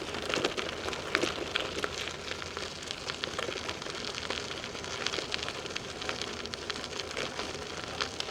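Bicycle tyres rolling over an unpaved trail: a steady crackle of many small irregular ticks and crunches.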